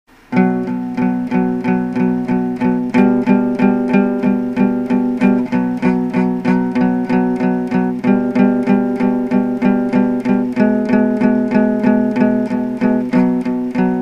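Instrumental background music: a picked guitar playing a steady, repeating pattern of notes, about three a second.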